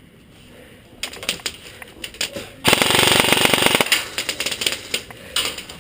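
Airsoft gun firing a full-auto burst about a second long, a fast, even rattle of shots about halfway through, with scattered sharp single clicks before and after.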